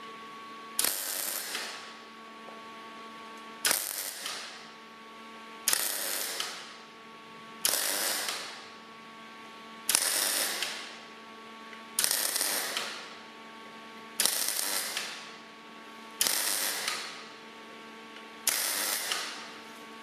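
MIG welder running short bursts of weld round a lambda boss on an exhaust downpipe, crackling nine times, each run about a second long, starting sharply and fading, roughly every two seconds. A steady electrical hum carries on between the runs.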